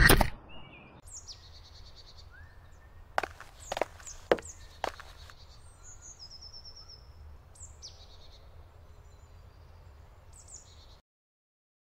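Woodland birds chirping in short high calls, over a faint low background. A brief loud whoosh comes at the very start, and four sharp clicks about half a second apart come a few seconds in; the sound cuts off abruptly near the end.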